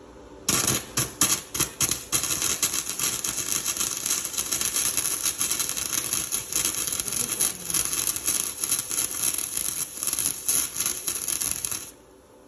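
Flux-core wire-feed welder arc crackling: a few stuttering starts about half a second in, then a steady crackle for about ten seconds that cuts off suddenly near the end.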